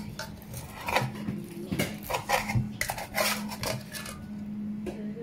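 Metal spoon scraping and clinking against a stainless steel wok while scooping out sticky biko, in several short clusters of strokes.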